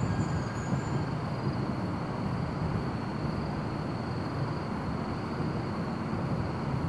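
Steady low rumble of outdoor city ambience, like distant traffic, heard between firework bursts, with a faint high steady trill over it. No firework boom stands out.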